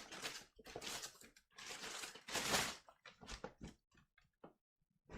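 Cardboard packaging rustling and scraping in several bursts as a large parcel is opened and handled, followed by a few light clicks and knocks.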